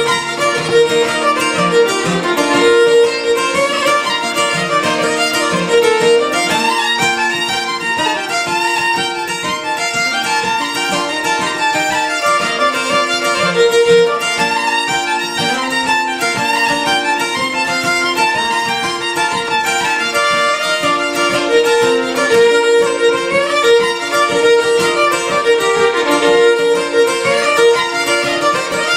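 Fiddle and acoustic guitar playing an Irish traditional tune together. The fiddle carries the melody in a quick, continuous run of short notes over the guitar's chordal accompaniment.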